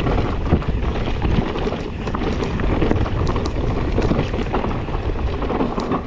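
Wind buffeting a GoPro's microphone during a fast mountain-bike descent, with the bike's tyres and frame rattling and clicking over a rough trail.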